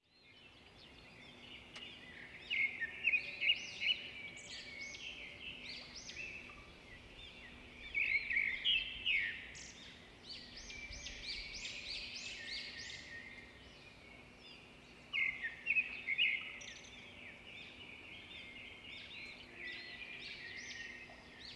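Birds chirping in several bursts of quick, high calls over a faint steady background noise.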